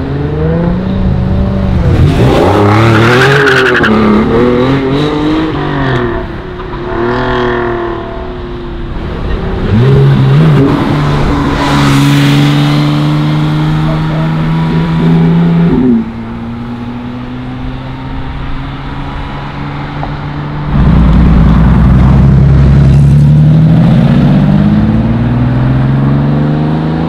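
Sports cars driving off one after another, engines revving. First a Jaguar F-Type convertible, its revs rising and falling over several gear changes. Then a Porsche 911 GT3 holds a long high note that cuts off suddenly, and an older wide-body Porsche 911 sets off loudest of all near the end with rising revs.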